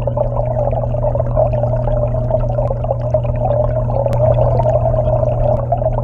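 Aquarium waterfall pump and flowing water heard from inside the tank: a steady low hum under a continuous rushing, crackling water noise.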